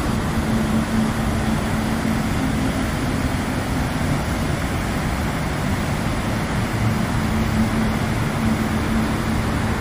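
Large river waterfall and rapids rushing: a loud, steady, even roar of white water pouring over rock ledges.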